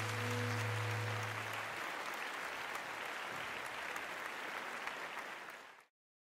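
Audience applauding, fading out to silence near the end, with the last held notes of soft music dying away in the first couple of seconds.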